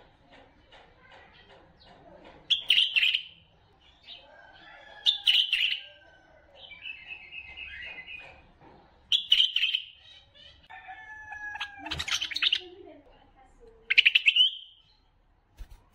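Bulbuls calling: five loud, harsh chattering bursts spaced a few seconds apart, with short whistled notes and a brief trilled phrase in between.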